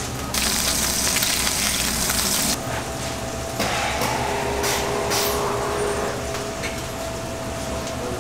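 Kitchen noise over a steady fan-like background: a loud hiss that starts and stops abruptly over the first two and a half seconds, then a faint steady whistling tone from about three and a half seconds in.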